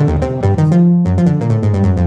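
Casio XW-G1 synthesizer playing a fast run of short, sharply attacked notes, about six a second, over a sustained bass.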